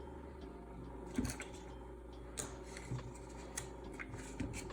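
Scattered light clicks and knocks of a worn welding-machine cable connector being handled after being pulled out, about five taps, the first and loudest a little over a second in.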